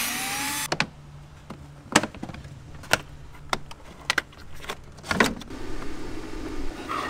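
Cordless drill-driver spinning up in pitch as it backs out a cowl trim fastener, stopping under a second in. Then scattered sharp clicks and knocks as the plastic engine-bay trim and cowl pieces are unclipped and handled.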